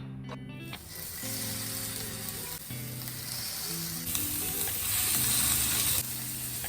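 Food sizzling as it fries in a hot pan, over background music of soft keyboard chords. The sizzle starts about a second in, grows louder for a couple of seconds, then drops suddenly near the end.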